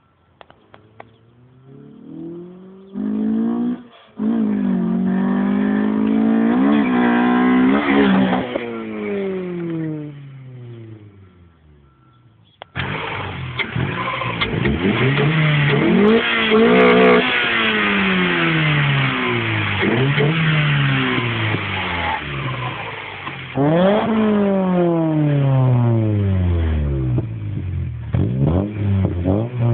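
Honda four-cylinder VTEC engine revved over and over, each rev climbing quickly and falling back. A short lull comes about twelve seconds in, then a longer run of rapid blips.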